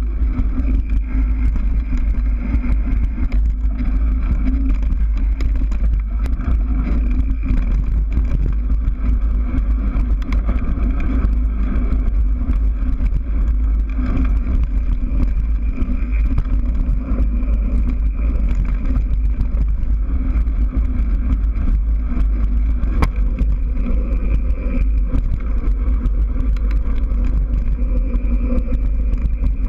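Mountain bike rolling fast down a dirt trail, heard from a bike-mounted camera: a steady heavy rumble of wind buffeting the microphone and tyres on dirt, with frequent small knocks and rattles from the bike over bumps.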